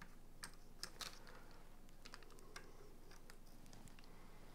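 Faint, irregular small clicks and taps of small parts being handled: an M.2 NVMe SSD and its enclosure pieces fitted together by hand.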